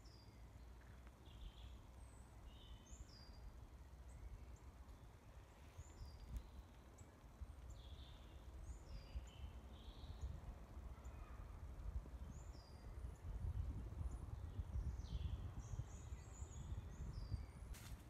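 Woodland birdsong: several small birds calling and singing in short, scattered high notes, faint, over a low rumble that swells in the second half. A sharp click sounds just before the end.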